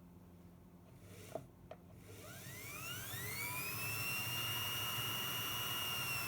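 Two light clicks, then a sewing-machine motor driving a spinning wheel's flyer through a belt: a whine that rises in pitch and grows louder as it spins up, then holds a steady high pitch. The flyer is turning on newly fitted bearings.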